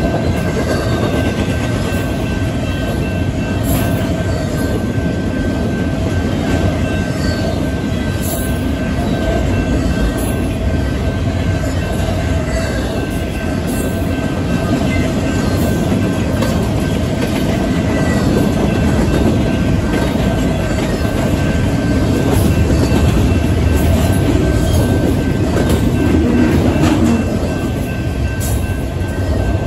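Intermodal freight train's double-stack well cars rolling past steadily: a continuous rumble of steel wheels on rail, with a thin steady wheel squeal and occasional clicks running through it. It gets a little louder after the middle.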